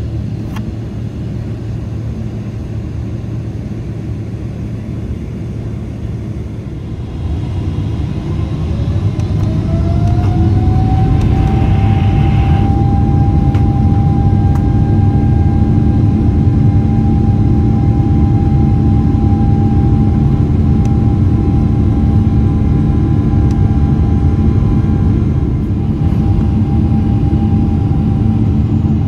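Boeing 777-300ER's GE90-115B turbofan engines heard from inside the cabin, spooling up to takeoff thrust. About nine seconds in, a rising whine climbs and then holds as a steady tone over a loud, deep rumble as the takeoff roll gets under way.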